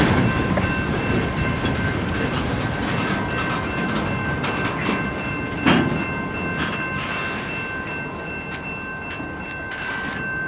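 Freight cars (gondolas and boxcars) rolling past with a continuous rumble of wheels on rail, clacking over the joints, with a sharp clunk about six seconds in. A thin, steady high-pitched ringing tone sounds under the rumble throughout.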